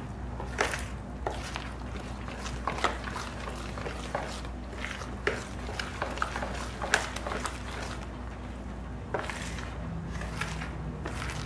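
A spoon stirring thick cornbread batter in a mixing bowl, knocking and scraping against the bowl in irregular clicks, over a low steady hum.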